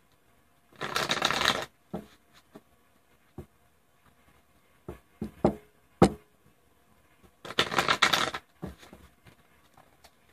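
A deck of tarot cards being shuffled: two brief rustling shuffles, about a second in and again near eight seconds, with scattered taps and clicks of the cards in between.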